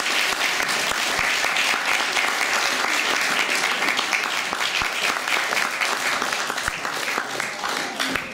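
Audience of guests applauding, a dense run of clapping that thins out toward the end.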